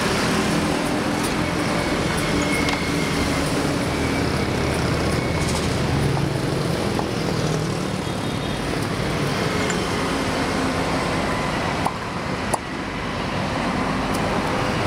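Steady traffic noise from a busy highway, with cars and motorbikes passing close by. Two sharp clicks stand out near the end.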